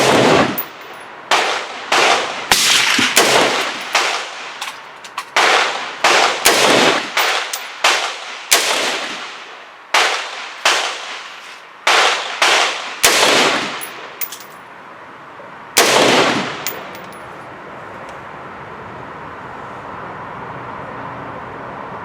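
AR-15 rifle being test-fired after an under-gassing fix: about twenty semi-automatic shots at an uneven pace, some in quick pairs and strings, each cracking with a short echo, over some sixteen seconds. The shooting then stops and only a steady background hum remains.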